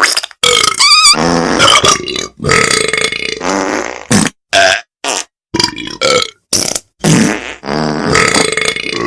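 Novelty ringtone made of a string of loud burps, one after another, cut apart by short sudden silences, some with a wavering pitch.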